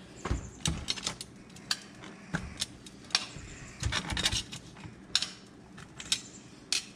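Metal kitchen tongs clicking and clinking against a cooking pot and a glass lid as pieces of corn are picked up and set in the pot, in a dozen or so irregular sharp clinks.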